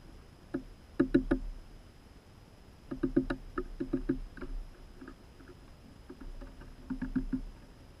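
Quick, muffled taps in short clusters: three about a second in, a longer run around three to four seconds in, and three or four more about seven seconds in.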